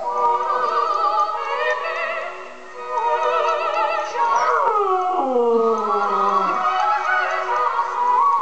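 Cocker spaniel howling along to a recorded operatic soprano. The soprano's wide vibrato runs through the first half, and long howls slide down in pitch around the middle.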